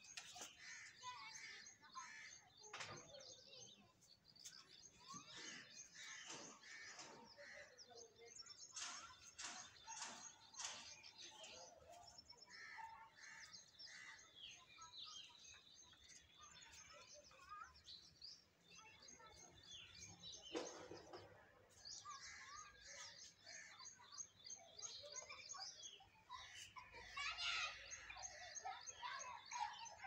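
Faint chorus of birds chirping, with many short high calls overlapping one another.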